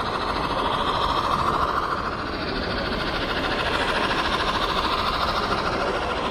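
Model steam locomotives and their cars running along the track of a model railroad layout, a steady running noise that swells a little as the trains pass.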